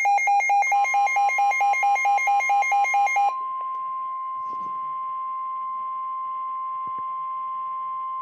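Rapid pulsing electronic alert beeps for about the first three seconds, joined early on by a steady tone of about 1 kHz that then continues alone: the NOAA Weather Radio warning alarm tone, which signals that a warning (here a severe thunderstorm warning) follows.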